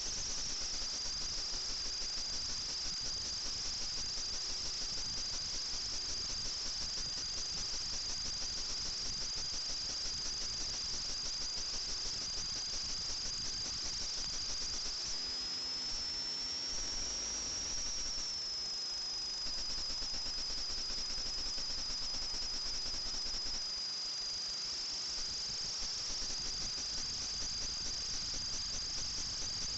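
FPV quadcopter's brushless motors and propellers whining at a high pitch with a fast flutter. The pitch rises a little about halfway through as the throttle goes up, then settles back.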